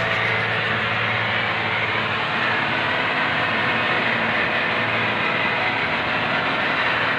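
Fishing boat's engine running steadily at an even, unchanging level.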